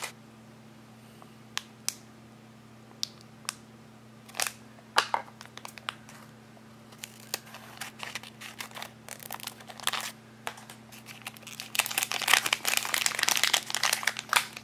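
Foil blind-bag packet crinkling as it is handled, with scattered crackles in the first half. About eight seconds in, scissors snip it open, and the bag is then pulled apart around a small box inside, the crinkling getting denser and loudest near the end.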